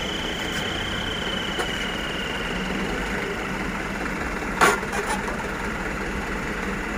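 Truck engine idling steadily, with a faint high whine that fades out after a few seconds. About two-thirds of the way through come a short, sharp burst of noise and a smaller one just after it.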